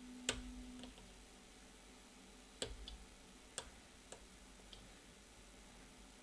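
Sharp, irregular clicks of a lock pick working the pin stacks of a Corbin Master Ring padlock, about six in all, the loudest a third of a second in. A faint low hum runs through the first second.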